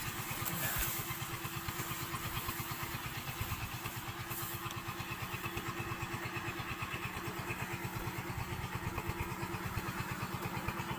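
A small engine running steadily at idle, with a rapid, even throb.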